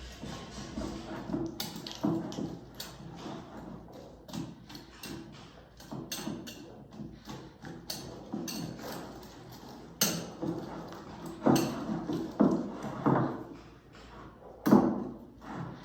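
Hand whisk stirring chopped fruit into cream in a bowl: irregular clinks and knocks of the whisk against the bowl, with a few louder knocks in the second half.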